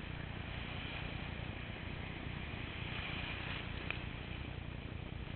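Ocean surf breaking and washing around in the shallows, with a steady low rumble underneath. The hiss of the wash swells about three seconds in, with a brief splash or click just after.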